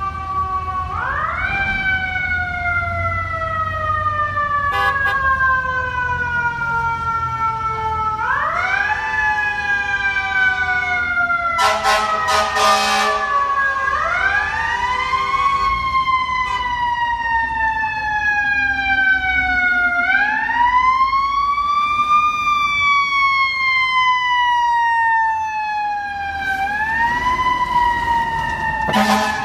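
Fire engine siren wailing as the truck responds to a call. The siren quickly winds up in pitch and then slowly falls away, five times over, about every six seconds, with a few short blasts along the way, the longest about twelve seconds in.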